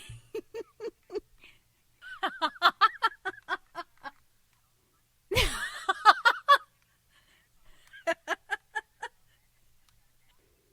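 A woman laughing in four bouts of rapid "ha-ha-ha" pulses, about five a second, with short pauses between them. A sharp intake of breath opens the third bout.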